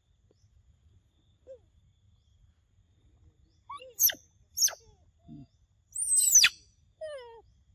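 A run of short, high-pitched animal calls, most of them falling in pitch. The loudest and longest comes about six seconds in and sweeps steeply down, followed by softer falling calls.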